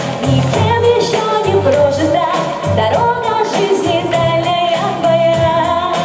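Pop song played loud over a hall's sound system: singing over a backing track with a bass line and a steady beat.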